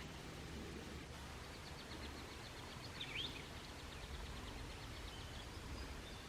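Faint bush ambience: a steady low rumble with faint high chirping, and one short bird call about three seconds in.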